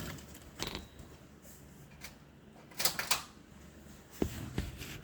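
A few scattered light clicks, rustles and knocks of handling, spaced out over several seconds, with a faint steady low hum underneath.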